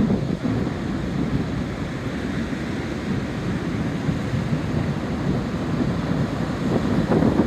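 Large ocean waves crashing and rolling in on a beach in high surf, a continuous rushing wash that swells near the start and again near the end. Strong wind buffets the microphone throughout.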